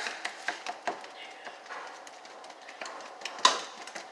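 A series of light clicks and knocks, several close together at the start, with one louder knock about three and a half seconds in.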